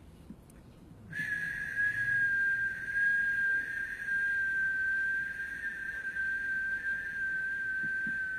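A person whistling one long, high, steady note that begins about a second in and sinks very slightly in pitch as it is held.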